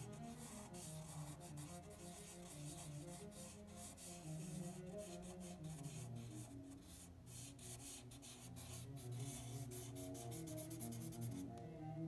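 Black permanent marker rubbing and scratching on paper in quick short strokes, stopping near the end as the pen lifts. Soft bowed-string background music plays underneath.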